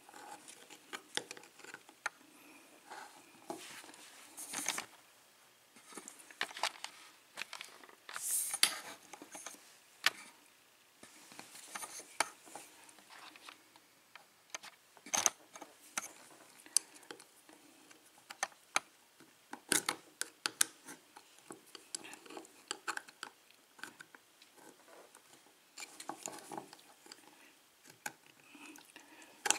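Small metallic clicks, taps and short scrapes at irregular intervals as tools and fingers work at the retaining clip on the back of a Russwin KIK lock cylinder, trying to pry it off.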